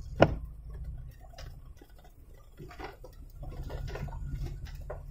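Inside a car's cabin on a rough dirt track: low, steady engine and road rumble with scattered light taps and clicks, and one sharp knock about a quarter second in.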